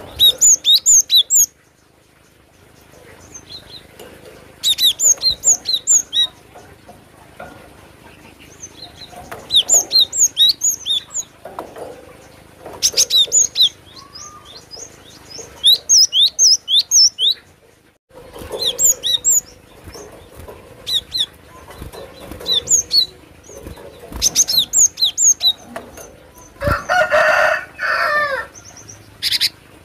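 Cinereous tit (glatik batu) singing: short bursts of rapid, high, sharp notes, each phrase about a second long, repeated every few seconds. Near the end comes a lower, harsher call of a different kind.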